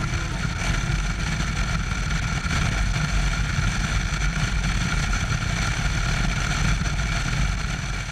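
Motorcycle cruising at steady speed, heard from the rider's seat: a steady engine rumble under rushing wind and road noise, with a few faint steady whining tones.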